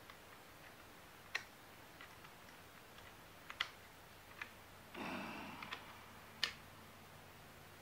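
Sparse metallic clicks and light taps as gloved hands work parts back into an AK-47's receiver, with a brief scraping rasp about five seconds in.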